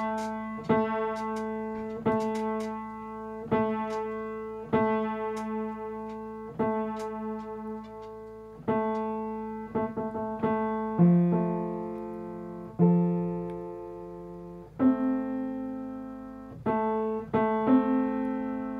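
Grand piano's A3–A4 octave struck again and again, roughly once a second, while a tuning lever lowers the A3 string to make the octave a wide 4:2 and narrow 6:3. Near the middle, two lower check intervals are struck and left to ring before the repeated octave strikes resume.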